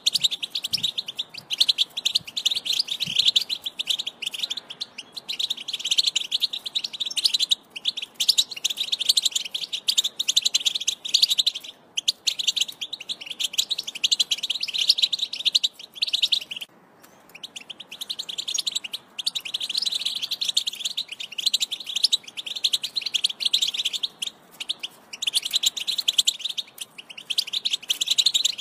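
European goldfinch singing: long runs of fast, liquid twittering, in phrases of several seconds broken by short pauses.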